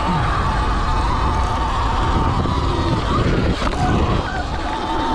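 Stock 2020 Sur Ron X electric dirt bike under way on a dirt track: a steady high whine from its motor and drive that dips briefly about three and a half seconds in. Heavy wind buffeting on the microphone and tyre rumble over dirt run beneath it.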